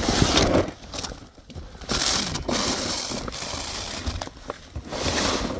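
A person crawling through a crawlspace: irregular crunching and rustling bursts as hands and knees move over the dirt and debris on the floor.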